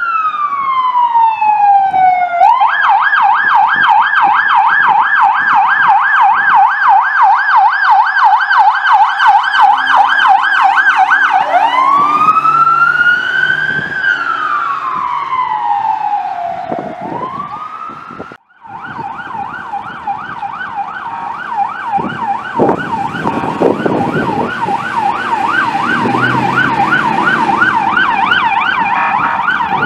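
Emergency vehicle electronic siren from the Peru Fire Department's Chevrolet 2500 pickup passing: a falling wail that switches to a fast yelp, then a slow wail rising and falling. About 18 seconds in, the siren of the responding Indiana DNR conservation officer's vehicle begins on a fast yelp, with low road and engine rumble under it.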